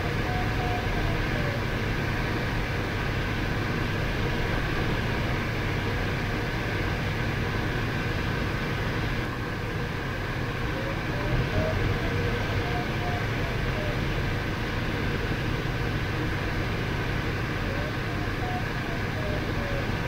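Steady rush of airflow inside a sailplane's cockpit in flight. The variometer beeps a pulsed tone that glides up and down in pitch, signalling lift. The beeping comes at the start, again around the middle and near the end.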